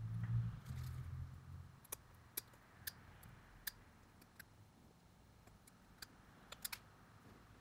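Small sharp clicks and taps of tools and phone parts being handled during a smartphone teardown, about eight scattered irregularly after a low rumbling handling noise in the first two seconds.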